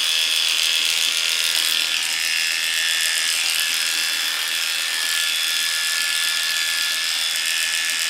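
Cordless electric dog clippers running steadily as the blade shaves the hair on a poodle's face.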